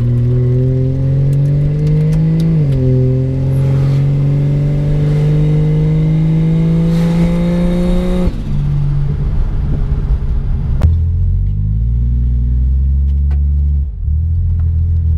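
Toyota 1JZ-GTE straight-six in a Holden VB Commodore, heard from inside the cabin while driving. The revs climb, drop sharply at a shift about two and a half seconds in, then rise slowly and steadily. Near eight seconds the engine comes off throttle into a lower, rougher drone, with a click a few seconds later and a brief dip near the end.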